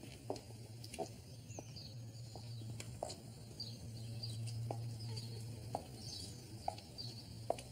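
Faint outdoor ambience: birds chirping briefly and often, with scattered light clicks and a low steady hum underneath.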